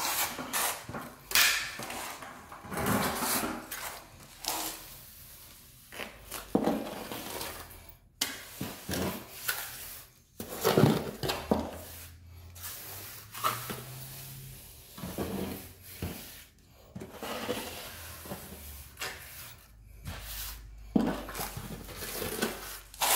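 Steel trowel scraping and spreading wet cement mortar over a concrete floor in irregular strokes, levelling a new layer.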